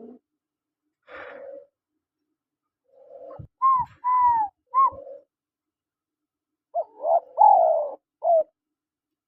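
Spotted dove cooing: soft low coos, then two phrases of louder, higher arching notes, one near the middle and one near the end.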